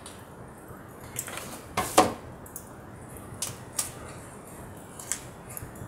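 Scattered clicks and knocks on a tabletop, the loudest about two seconds in, as a hot glue gun is put down and paper is handled.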